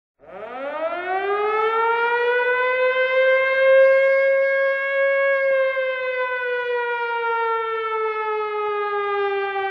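A single long siren-like wail: it winds up in pitch over about the first two seconds, holds, then slowly sinks for the rest.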